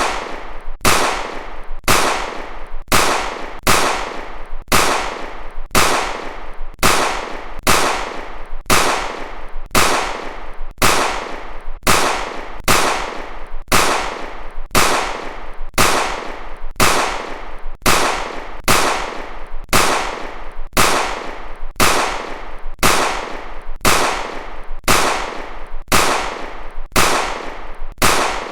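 Pistol gunshot sound effect repeating at an even rate of about one shot a second, each shot a sharp crack with a fading tail that runs almost into the next.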